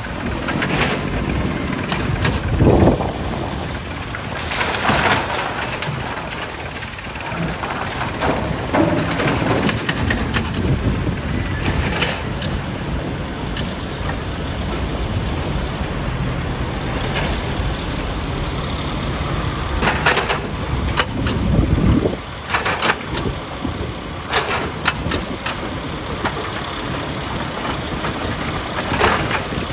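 Heavy diesel machinery at a stone crushing site running steadily, with scattered knocks and clatter and a louder low surge a little past two-thirds of the way through.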